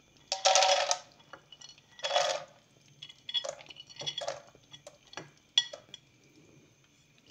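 Almonds tipped from a small metal plate into a frying pan of hot ghee: three short clattering rushes as they slide off the plate, then a few single clicks as the last nuts drop in.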